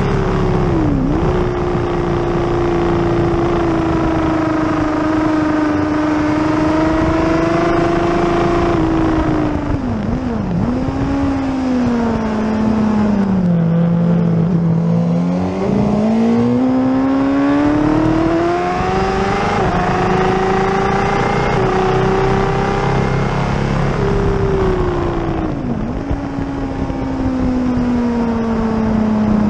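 Onboard sound of a Suzuki sportbike's engine at race pace, over a steady rush of wind. The engine pitch holds high, falls in steps to its lowest about a third of the way in as the bike slows for a corner, then climbs again under acceleration, broken by a few quick dips at gear changes.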